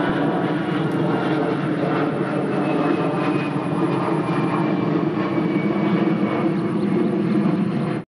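A steady, loud engine drone that cuts off suddenly near the end.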